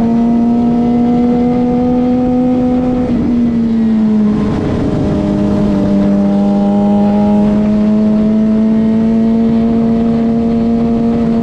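Suzuki GSX-R600 inline-four engine running steadily under throttle while riding, heard with wind rush. Its pitch dips about three to four seconds in, then holds and slowly climbs again.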